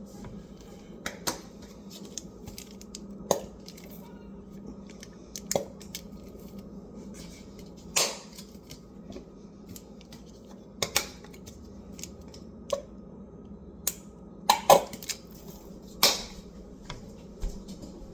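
Irregular clicks and knocks of kitchen utensils and a dish being handled while a sauce is mixed, about a dozen separate strikes with a cluster near the end, over a steady low hum.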